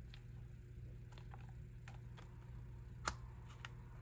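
Faint clicks and taps of clear plastic storage boxes and paper cutouts being handled, with one sharper click about three seconds in, over a low steady hum.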